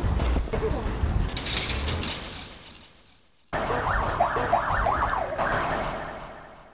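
Street traffic noise in two cut-together pieces, each fading out. The first is a low traffic rumble. The second, after a sudden cut, is a fast wavering siren, about four rises and falls a second, over the traffic.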